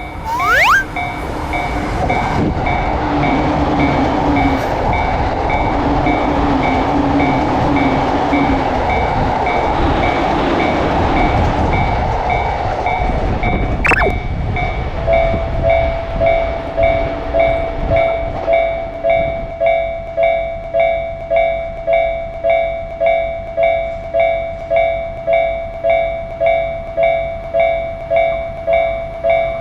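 Japanese railroad crossing warning bell dinging steadily while an electric train runs past with a rumble and wheel clatter. The train noise dies away in the second half, leaving the crossing bell pulsing alone at about one and a half dings a second.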